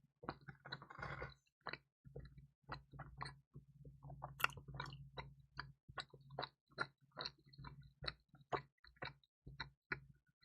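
Close-miked chewing of crispy, cheesy pizza: a string of short crackles and mouth clicks. There is a denser crunchy stretch about a second in, and the loudest crunch comes about four and a half seconds in.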